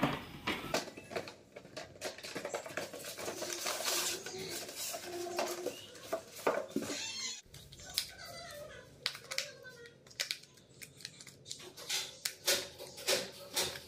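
Packaging being handled: a cardboard toy box and its polystyrene insert pulled open, with irregular rustles, scrapes and clicks, then clicks of a plastic remote control being handled.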